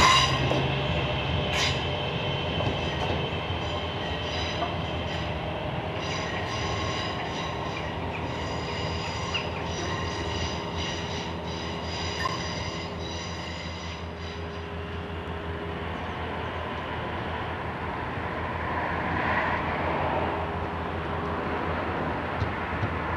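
London Midland Class 323 electric multiple units running past, with a steady electric traction whine made of several tones and wheels clicking over rail joints. The whine fades about 15 seconds in, and another train's rumble swells near the end.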